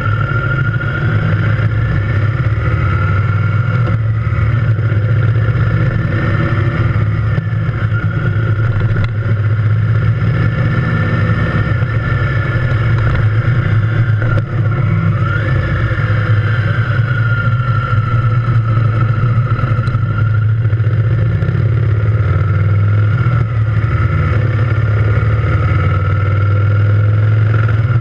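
Triumph Thunderbird Storm motorcycle's engine running while under way, loud and steady; its pitch dips briefly about halfway through and then climbs again.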